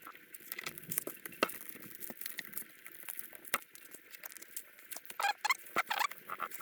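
Plastic pry tool working under a cracked tablet screen: irregular small clicks and crackles of glass and softened adhesive, with a few short squeaks near the end.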